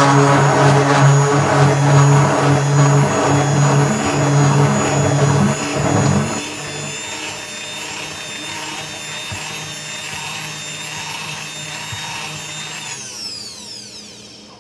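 Stick blender motor running in thick hot process soap batter. It runs loud for about six seconds, then quieter, and winds down with a falling whine near the end.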